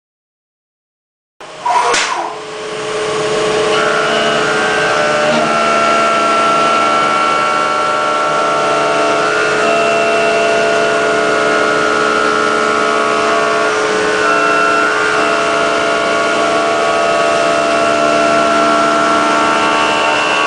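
Deckel Maho CNC milling machine cutting at high speed. It cuts in abruptly after a brief silence with a loud burst, then runs steadily with a mix of held whining tones that shift pitch every few seconds as the cut changes.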